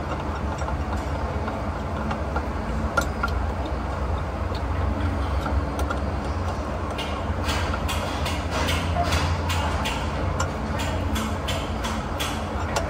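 A steady low hum, and from about halfway in a run of irregular light clicks from hand work at the steering wheel hub and column.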